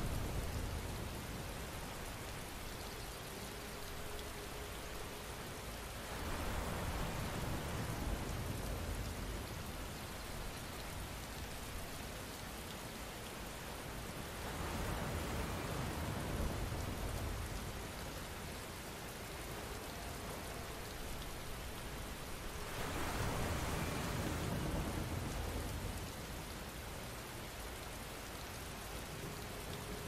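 Steady rain falling, swelling louder and heavier about every eight seconds.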